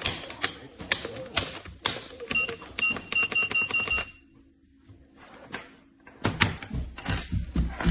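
Clicks and clatter of plastic toy plugs being handled at a toy power-strip outlet, with a quick, even run of short electronic beeps about halfway through. After a brief lull there are low thumps near the end.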